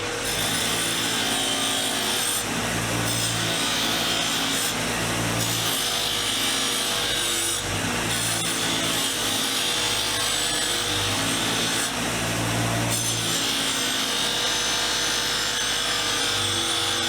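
Motor-driven wire wheel running, with a screwdriver's metal ferrule and shaft pressed against it to strip them clean; the scratchy brushing swells and eases in repeated passes every two to three seconds over the steady motor hum.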